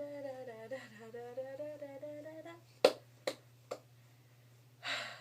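A girl's voice humming the routine's tune on "da" for about two and a half seconds. It is followed by three sharp clicks about half a second apart, the first the loudest, and a short breathy burst near the end.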